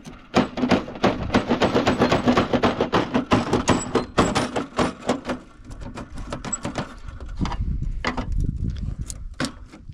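Rapid clattering and knocking of a hand tool working at the rivets of a plastic snowmobile rear bumper. It is dense for about the first five seconds, then thins to a few separate knocks.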